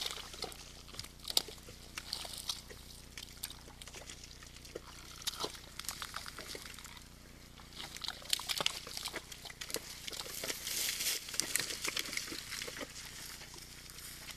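Red deer moving through a mud wallow: hooves slapping and splashing in wet mud, heard as many scattered short clicks and splashes, with a quieter moment about halfway through.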